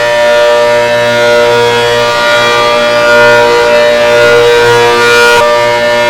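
ACA Hurricane civil defense siren sounding loud and steady: a held chord of several tones with gentle swells in loudness. A high hiss above it drops out about five seconds in.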